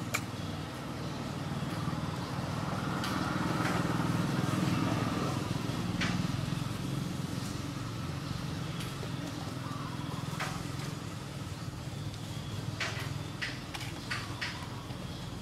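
A low motor hum that swells over the first few seconds and then eases off, with scattered sharp clicks, several close together near the end.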